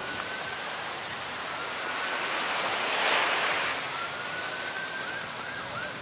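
A faint, distant emergency-vehicle siren wailing with a slowly rising pitch, then a few quick whoops near the end. A rushing swell of noise builds and peaks about halfway through.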